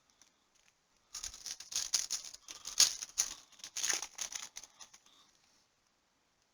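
Trading cards being handled and flipped through by hand: a quick run of rustling and clicking that starts about a second in and dies away after about four seconds.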